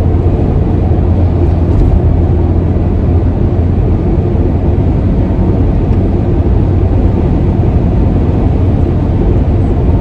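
Steady road and engine noise of a moving car, heard as an even low rumble.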